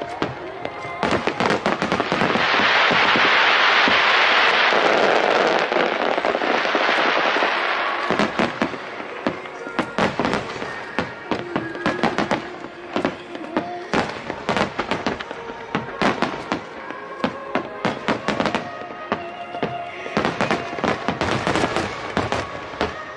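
Fireworks display: many shell bursts going off in quick succession, with a long dense stretch of hissing crackle about two seconds in.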